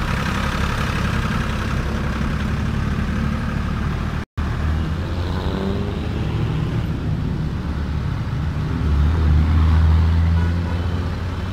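Diesel tractor engine and road traffic: a tractor hauling a loaded trolley rumbles past, the sound breaks off briefly about four seconds in, then engine noise from approaching tractors and motorcycles swells louder near the end.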